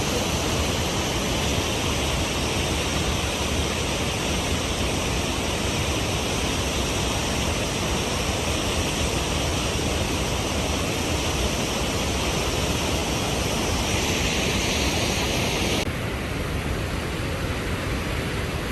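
Waterfall rushing: a steady, loud roar of falling water. About three-quarters of the way through, its high hiss drops away suddenly while the low rush carries on.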